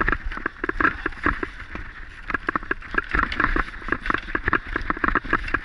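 Mountain bike rattling and bumping over a rough dirt trail at speed: a fast, irregular run of clacks and knocks over a low rumble.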